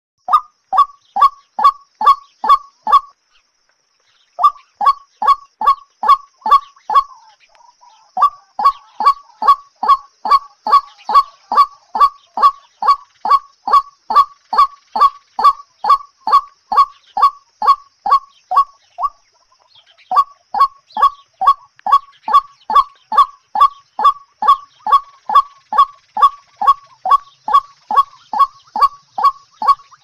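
White-breasted waterhen calling: a loud, monotonous run of croaking 'kwaak' notes, about two to three a second, broken by a few short pauses.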